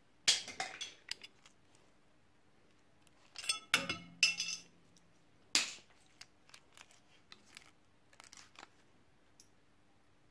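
The sawn-through plastic casing and metal tape mechanism of a Dual PCP 1 pocket cassette player clicking and clattering as it is handled in gloved hands. The sounds come in short irregular bursts: one just after the start, a cluster about three and a half to four and a half seconds in, a sharp click soon after, then lighter ticks.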